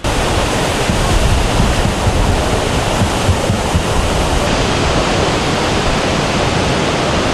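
Niagara Falls: the loud, steady rush of a huge volume of water going over the falls, with a deep rumble underneath.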